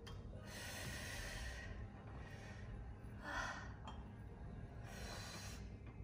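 A woman breathing in and out through seated cable-row reps: about four separate breaths, a second or two apart.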